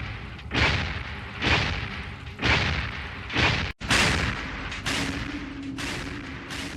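Sound-effect hits for the robotic dragon Predaking: heavy booming impacts about once a second, each dying away. After a brief break, a louder hit follows, then quicker hits over a steady low hum.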